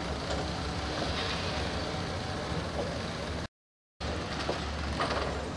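Heavy diesel machinery running with a steady low hum, with a few faint knocks. The sound cuts out for about half a second some three and a half seconds in, then the hum resumes.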